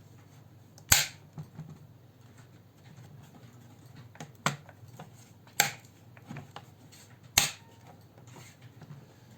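Sharp plastic clicks, four loud ones with smaller ticks between, as the Asus Eee PC 1015BX netbook's top cover is pressed and snapped back into place.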